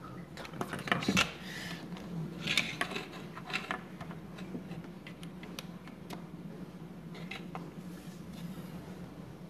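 Small hard plastic objects and a cable handled on a desk: a cluster of knocks, clicks and scrapes in the first few seconds, loudest about a second in, then a few scattered clicks. A faint steady hum runs underneath.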